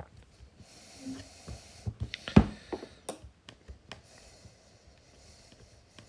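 Small plastic parts of a car's display unit being handled and fitted: scattered clicks and knocks, the sharpest about two and a half seconds in.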